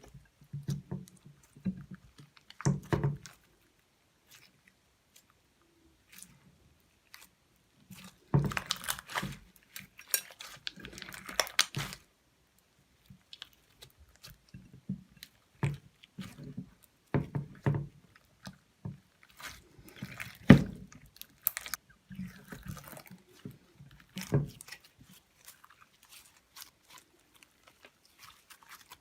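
Slime being squeezed and kneaded by hand, with sticky wet clicks and small pops in irregular bursts and short pauses between them.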